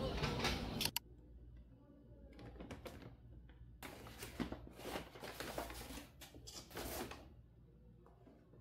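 Music and voices cut off about a second in. Then a shopping bag rustles and a cardboard LEGO set box is handled as it is lifted out, giving irregular soft rustles and light knocks.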